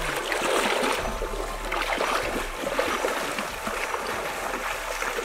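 Water sloshing and splashing as people wade through a shallow stream, with a crocodile dragged by its tail through the water. Many small, irregular splashes follow one another without a break.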